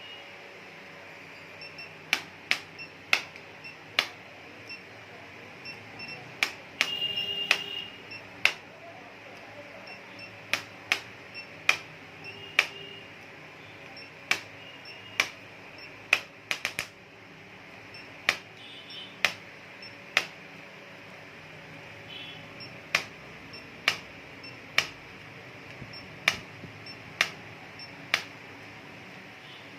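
Sharp single taps or clicks at irregular intervals, roughly one every second, with a quick run of several taps about sixteen seconds in and a brief rustling noise about seven seconds in, over a steady low hiss.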